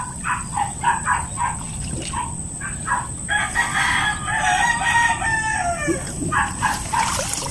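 A rooster crowing once, a long call of about two and a half seconds that falls in pitch at the end, starting about three seconds in. Before it come short sounds repeating about three times a second.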